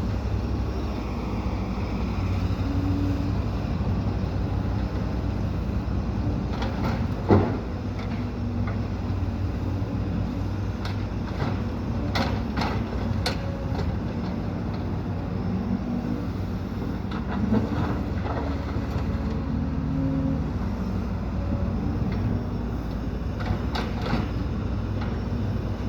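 Diesel engines of excavators and dump trucks running steadily at a worksite, with scattered sharp metallic clanks and knocks. The loudest knock comes about seven seconds in.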